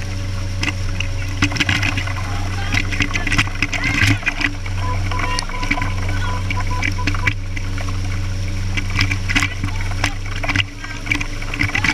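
Water rushing and splashing against a boat's hull at speed, with irregular crackles of spray over a steady low engine drone.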